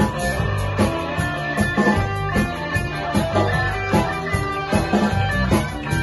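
A live band plays an instrumental passage: a semi-hollow electric guitar plays chords over a drum kit, with no singing.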